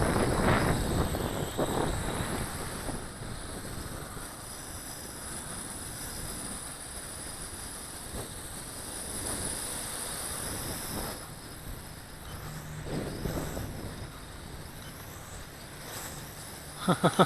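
Gusty wind buffeting the microphone, loudest at the start and easing into a steadier rush, with a faint steady high-pitched hiss behind it.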